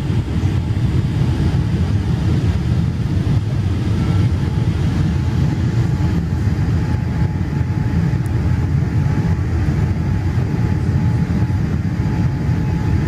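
Cabin noise of a Boeing 787 Dreamliner low on final approach: a steady, loud low rumble of the engines and airflow, with a faint steady tone joining in about halfway through.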